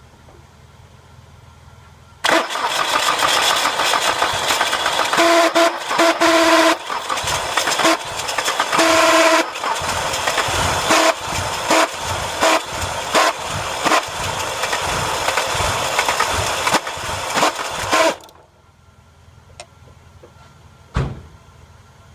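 Loud electrical buzz from a Nissan B14 that fails to start, sounding like a horn. It comes in about two seconds in and runs for about sixteen seconds as a fast, rattling stutter, with a steady horn-like tone standing out twice. It then cuts off suddenly, and a single click follows near the end.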